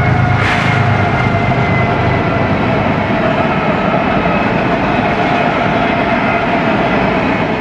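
BNSF freight train rolling past at close range: a loud, steady rumble and rattle of railcars on the track, with thin steady metallic ringing from the wheels. A deep low drone fades out in the first second, and there is one brief sharp clank about half a second in.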